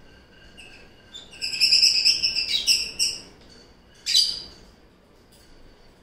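Pet lovebirds chirping: a run of loud, rapid high chirps starting about a second and a half in and lasting about a second and a half, then one sharp call about four seconds in.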